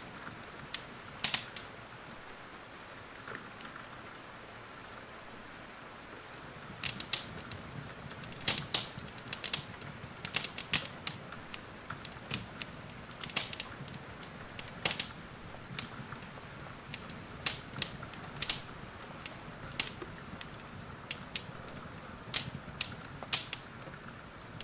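Wood fire crackling with irregular sharp pops over a steady hiss of rain. The pops are sparse at first and come more often from about a third of the way in.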